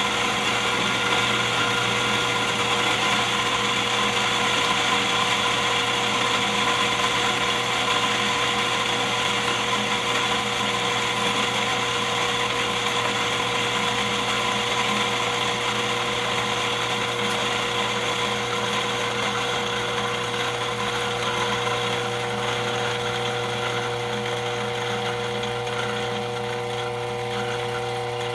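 Coffee machine running with a steady mechanical hum and whir, its tone shifting slightly about three quarters of the way through.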